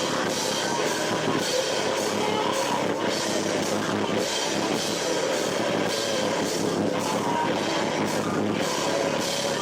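Live rock band playing loudly, with drum kit and electric guitar and a steady beat. It sounds harsh and washed out, because the camcorder microphone is overloaded by the sound bouncing around the room.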